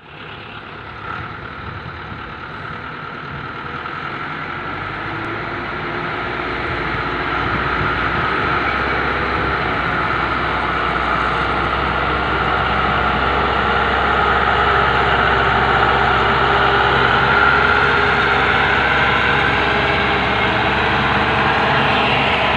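Diesel engine noise from a loaded four-wheel-drive dump truck driving slowly through soft sand, swelling over the first eight seconds and then holding steady.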